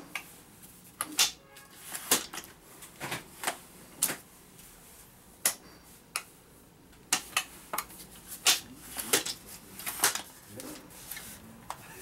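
Telescopic aluminium step ladder being pulled out section by section, its aluminium tubes and rung locks clicking and clacking sharply as each section slides up and locks, about a dozen clicks at uneven intervals.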